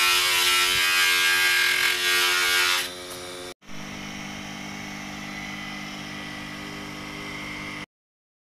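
Electric buffing wheel running with a hammered brass lamp shade pressed against it for polishing: a steady motor hum with strong hiss. About three seconds in it drops to a much quieter steady hum, cuts out for a moment, resumes, then stops abruptly near the end.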